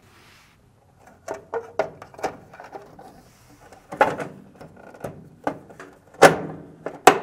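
Cover of a dryer's control box being pushed and snapped into place by hand: a run of small clicks and knocks, with louder knocks about four seconds in, just past six seconds and near the end.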